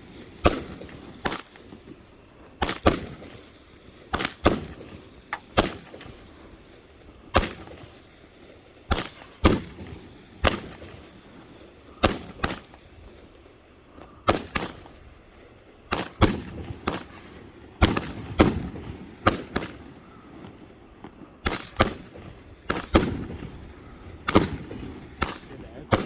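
A 25-shot consumer firework cake firing shot after shot: sharp bangs at uneven intervals, about one or two a second, each dying away in a short echoing tail.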